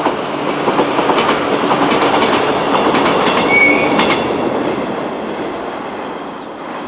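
Shinano Railway 115-series three-car electric train running past, its wheels clicking over the rail joints. A brief high wheel squeal comes about halfway, and then the sound fades as the train moves away.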